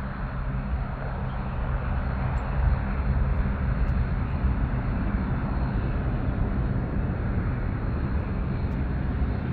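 Jet engine noise from a FedEx Airbus A300's twin turbofan engines as the aircraft climbs away after takeoff: a steady low rumble that grows a little louder about two seconds in.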